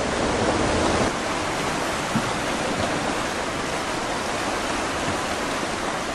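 Tsunami floodwater rushing: a steady, even roar of moving water that never lets up.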